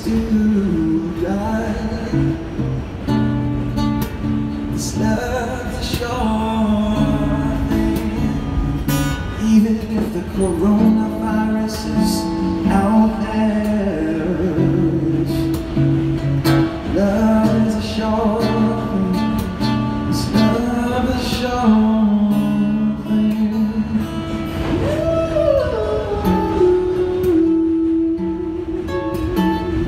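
A man singing a song while strumming an acoustic guitar, live. Near the end the voice slides down into one long held note.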